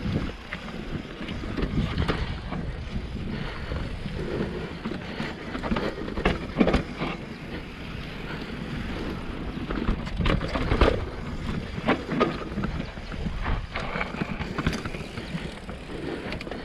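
Mountain bike descending a dirt singletrack: tyres running over dirt and wind buffeting the microphone, with repeated sharp knocks and rattles from the bike over bumps, the loudest about two-thirds of the way through.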